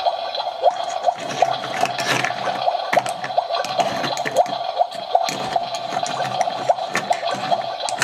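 Electronic bubbling, boiling-water sound effect from a toy kitchen playset's stove, a steady run of quick bubble blips, with light clicks of a plastic spoon stirring plastic toy vegetables in a plastic pot.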